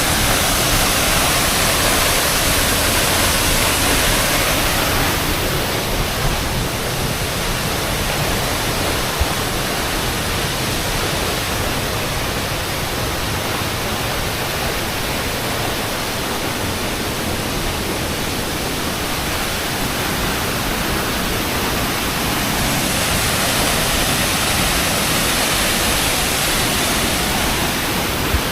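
Waterfall rushing: a steady, full rush of falling water with no pitch or rhythm, slightly quieter through the middle.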